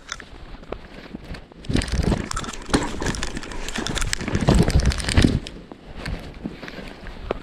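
A rider goes over the handlebars of an electric scooter and tumbles on sandy, mossy forest ground after the front wheel dug into soft sand. There is a jumble of thuds, scraping and rustling close to the camera, starting about two seconds in and lasting nearly four seconds, with quieter rustling either side.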